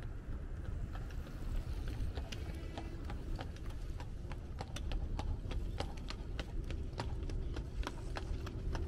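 Horse's hooves clip-clopping on asphalt as a horse-drawn carriage trots past, a quick run of sharp hoof strikes that grows denser and louder from about two seconds in.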